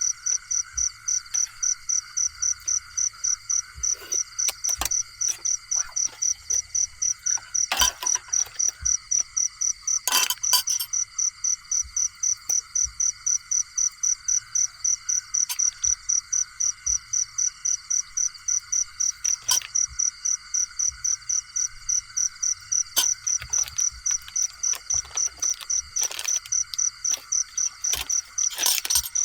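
Crickets chirping in a steady, rapid rhythm of high pulses, about three a second, with scattered sharp clicks and snaps.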